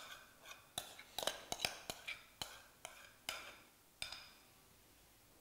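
Metal spoon tapping and scraping against a glass mixing bowl and glass dish as cream mixture is scooped and spread: a dozen or so light, irregular clinks over about four seconds, then they stop.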